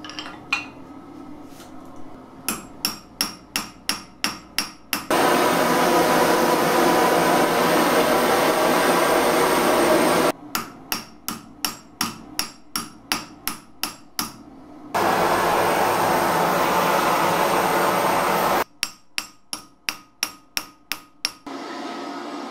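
Hand hammer striking a cast silver bar on a steel block, in three runs of regular blows at about three a second. Between the runs comes a loud, steady rushing noise from a gas torch, typical of annealing the metal between rounds of forging.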